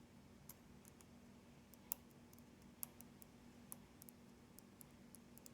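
Faint, scattered small clicks of a dimple pick tapping and shifting the pins inside a Sargent Keso dimple lock, a few irregular ticks over near silence with a low steady hum.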